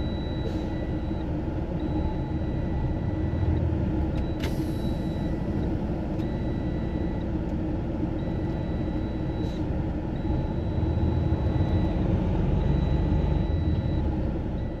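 Truck dashboard warning alarm sounding a string of long beeps, each over a second long with short gaps, warning of a transmission fault. Under it is a low steady vehicle rumble, and a short hiss comes about four and a half seconds in.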